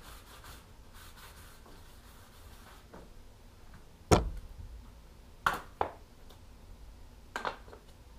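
Whetstones and a plastic whetstone case handled on a wooden workbench: one sharp knock about halfway through, then three lighter clacks.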